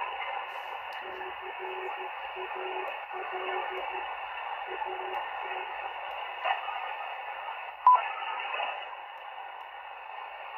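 Malachite DSP SDR shortwave receiver playing steady band noise on 40 metres in lower sideband, with a weak Morse code signal keying on and off as a low tone during the first half. A short, sharp click sounds about eight seconds in.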